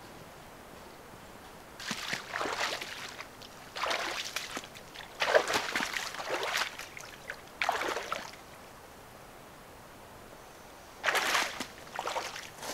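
Boots wading through shallow water: slow, separate sloshing splashes, one at each step, with pauses between them.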